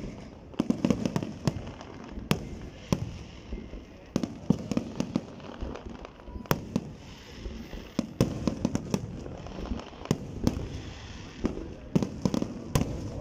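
Aerial fireworks display: shells bursting in quick, irregular succession, several sharp bangs a second over a continuous low rumble.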